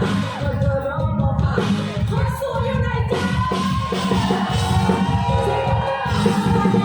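Live luk thung band playing through a PA, with a heavy bass and drum beat, and a woman's voice singing over it in held, sliding notes through the middle.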